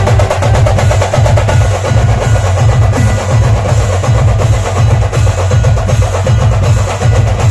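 Dhol-tasha band drumming a fast, dense rhythm: deep dhol beats pulse under the rapid, cracking strokes of the tasha drums.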